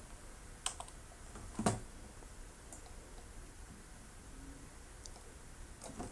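A few sharp computer mouse clicks over faint room hiss, the loudest about one and a half seconds in, as the pointer grabs and drags the indent marker on the ruler.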